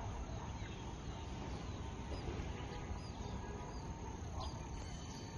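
Outdoor ambience: a steady low rumble with faint bird calls and short chirps scattered through it.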